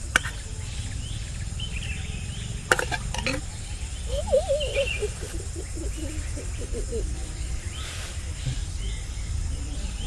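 Outdoor ambience with faint bird chirps over a steady low rumble, a few light clicks and knocks from food and plates being handled on a table, and a low wavering sound about four to seven seconds in.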